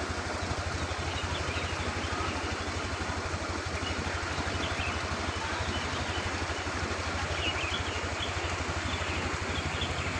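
A small engine idling steadily, a fast even low pulsing that does not change, with a few faint bird chirps over it.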